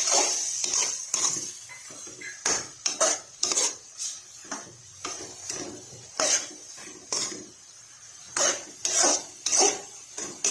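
A cooking utensil scraping and knocking against a pan as chicken pieces in a thin sauce are stirred, in irregular strokes about one or two a second.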